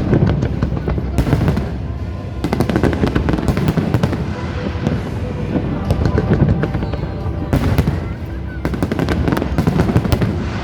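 Fireworks going off in dense volleys of rapid crackling bangs, with the heaviest clusters about a second in, from two and a half to four seconds, and again near the end, over a steady low rumble. Music plays underneath.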